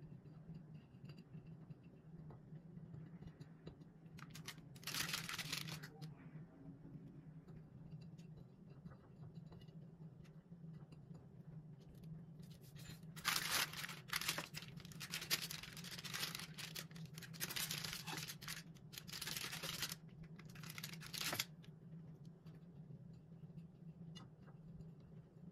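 Baking paper crinkling and rustling as it is handled, in a short burst about five seconds in and a longer run of bursts from about 13 to 21 seconds, over a steady low hum.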